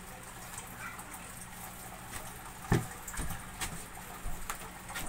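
Handling sounds as whole fish are laid into a container of salt: one sharp thump about halfway through, then several lighter taps and clicks. A steady low hum runs underneath.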